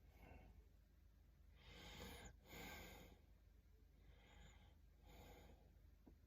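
Near silence with a person with hiccups breathing quietly: two soft breaths, one straight after the other, about two seconds in, and a few fainter breaths around them.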